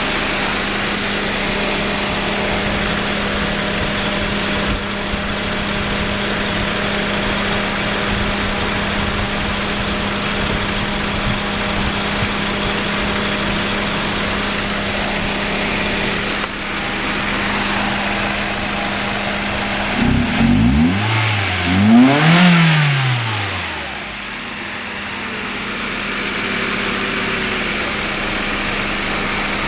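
Mazda 323F engine idling roughly, with an uneven low pulse. About twenty seconds in it is revved once, the pitch climbing and falling back, before it settles again to the rough idle.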